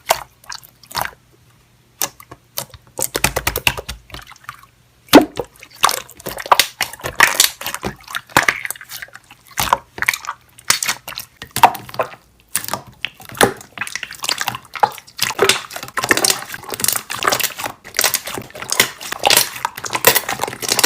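Slime being squeezed and worked by hand, giving runs of quick wet clicks and pops, with two brief pauses early on.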